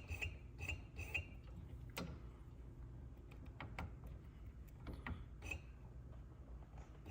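Scattered faint clicks and knocks of metal parts being handled and pushed into place on a power recliner's reclining mechanism, with a few small high ticks in the first second and a sharper knock about two seconds in.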